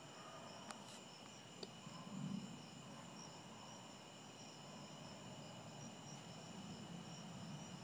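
Night insect chorus trilling steadily at several high pitches, one of the trills pulsing. A few faint clicks come in the first two seconds, and a brief low rumble a little over two seconds in.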